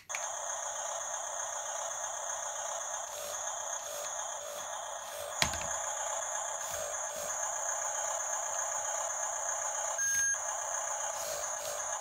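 A remote-control toy bulldozer's built-in sound effects playing through its small speaker: a tinny, steady electronic sound with no bass that switches on suddenly. A sharp click comes about five and a half seconds in, and a short beep near ten seconds.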